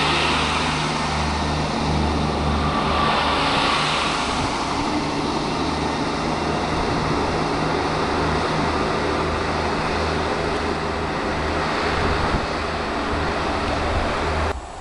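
Great Western diesel multiple unit pulling away, its diesel engines giving a low, pulsing drone under a steady rushing noise. The sound drops off suddenly near the end.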